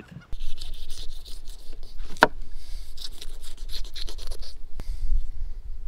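Fillet knife sawing through a barracuda, cutting it into chunks, with rapid back-and-forth scraping strokes and a sharp click about two seconds in.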